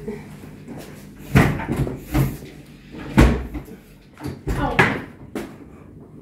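A series of about five wooden knocks and bumps from household furniture and objects being moved during cleaning, the loudest about a second and about three seconds in.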